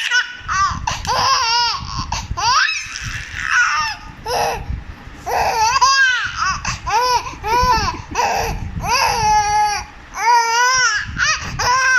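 A young child laughing in a run of high-pitched giggles, one burst after another, amused by someone's fake sneezes.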